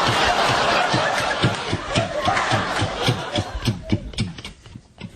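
Laughter from a studio audience, dying down about four seconds in.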